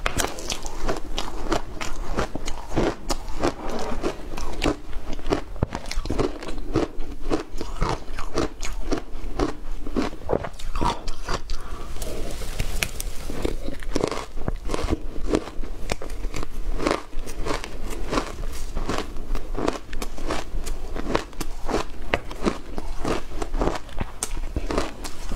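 Close-miked crunching and chewing of shaved ice coated in matcha and milk powder: a steady run of sharp crunches, several a second.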